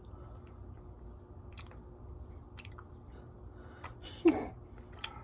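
Someone chewing a chewy snack, with scattered small wet mouth clicks. A brief vocal sound breaks in about four seconds in.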